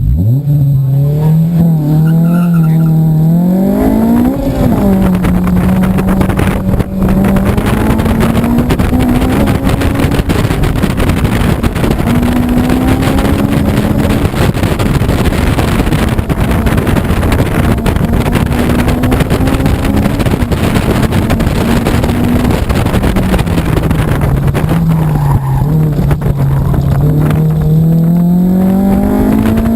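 Honda S2000's four-cylinder engine driven hard through an autocross course. The revs climb in quick steps through gear changes at the launch, then stay high and rise and fall with the corners. They drop about 23 seconds in and climb through the gears again near the end.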